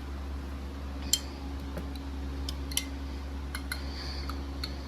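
Steady hum of an electric fan running, with scattered light clicks and clinks of kitchen utensils and dishes; the sharpest click comes about a second in.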